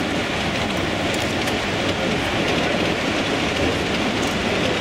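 Model trains running round a layout: a steady running noise of wheels on track, with a few faint irregular clicks.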